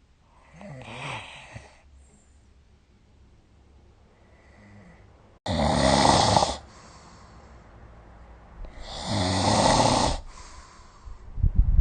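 A sleeping person snoring: three rasping snores a few seconds apart, the first soft and the next two loud.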